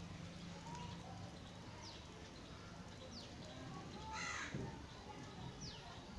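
Faint bird calls: three short, quick falling chirps and one louder, harsher call about four seconds in.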